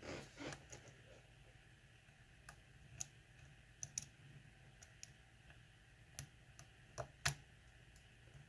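Faint, scattered clicks of a lock pick and tension wrench working the pins inside a lock during single-pin picking, about a dozen over the stretch, the loudest about seven seconds in.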